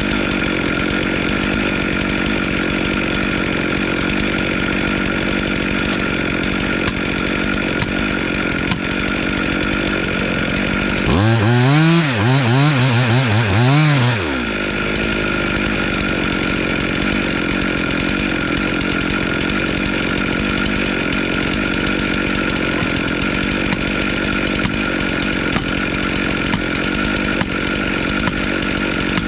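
Chainsaw running steadily at a constant speed. About eleven seconds in, a louder engine sound rises and falls in pitch several times for about three seconds, then drops back.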